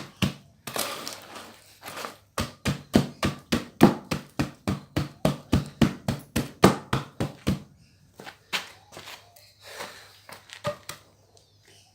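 Dirt being rammed down into a wooden forge box: a rapid series of dull thudding strikes at about five a second for several seconds, with a few scattered strikes and scraping before and softer knocks after.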